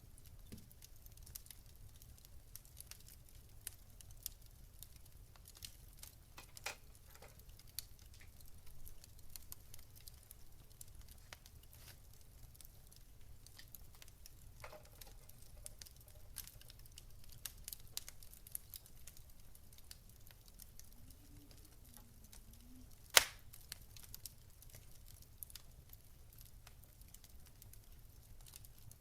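Wood fire crackling quietly, with scattered small irregular pops and one sharp loud pop about 23 seconds in, over a faint steady low hum.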